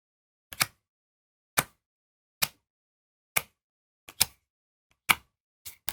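Short sharp clicks of trading cards being flicked or laid down one at a time, about one a second, some as quick doubles.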